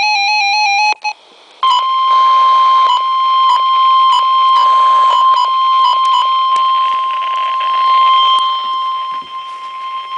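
The end of the SAME digital header bursts, a warbling, stepping data tone, from a NOAA Weather Radio receiver's speaker. After a brief gap, the steady single-pitch 1050 Hz weather radio warning alert tone follows and holds, with a few brief dropouts in its first few seconds.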